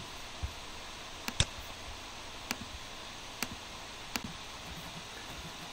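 A computer mouse clicking: about half a dozen short, sharp clicks a second or so apart, two of them in quick succession, over a steady low hiss.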